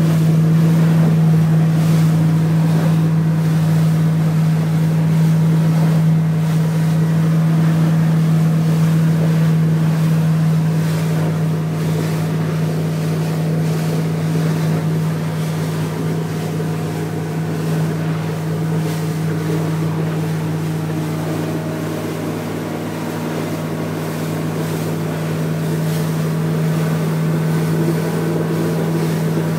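Honda BF90 VTEC four-stroke outboard running steadily at cruising speed, a constant engine drone, with water rushing past the hull and wind noise.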